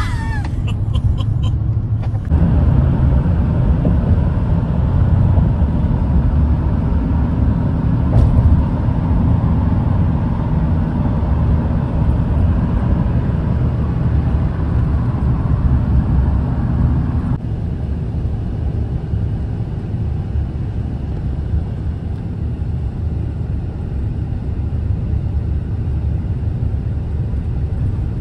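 Steady low road-and-engine rumble of a moving vehicle, heard from inside the cab while driving. The rumble gets louder about two seconds in and eases slightly about two-thirds of the way through.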